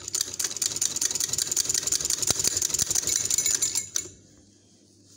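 Domestic sewing machine stitching a seam, running steadily with a rapid, even ticking of the needle. It stops about four seconds in.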